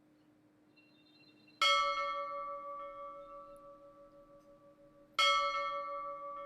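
Two sharp metallic strikes about three and a half seconds apart, each ringing out like a bell with several clear tones and fading slowly.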